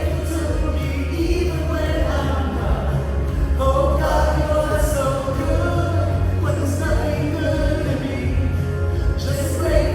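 Live worship music from a church praise band, with singing over a steady bass.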